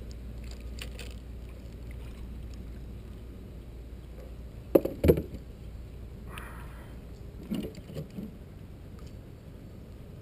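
Knocks and bumps on a kayak while a just-caught bass is handled aboard: two sharp knocks about five seconds in, the loudest, then a short hiss and two lighter knocks, over a steady low rumble.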